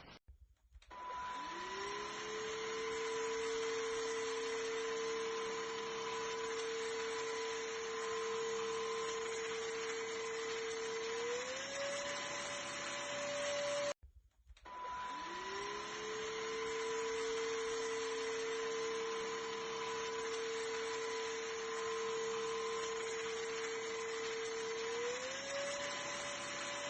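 ENOLUX K7 PRO cordless vacuum cleaner's motor spinning up with a rising whine and running steadily with airflow hiss, then stepping up to a higher pitch. It cuts off abruptly about halfway through, and the same start-up, steady run and step up then repeat.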